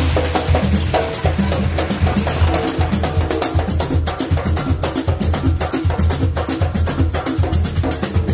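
Background music with a quick, steady percussion beat over a strong bass line.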